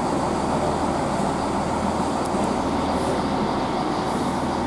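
Class 165 diesel multiple unit's underfloor diesel engines running at a steady drone, with no rise in pitch.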